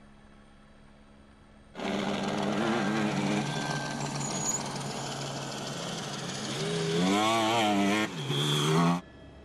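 Peugeot 3008 DKR rally car's twin-turbo diesel V6 engine revving hard as the car is driven through sand, its pitch rising and falling with the throttle over a rough, noisy rush. The sound cuts in suddenly about two seconds in, breaks briefly near the end, and stops abruptly just before the end.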